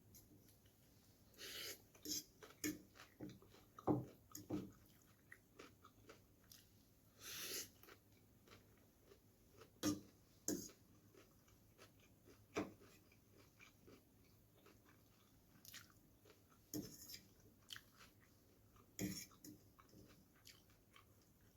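Close-miked chewing and mouth sounds of someone eating chicken noodles: irregular wet smacks and clicks, with a few longer hissy sucking sounds.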